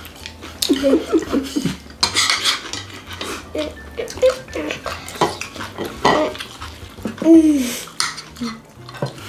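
Chopsticks and spoons clicking and scraping against ceramic plates and bowls while people eat, with chewing and a few short hummed voice sounds.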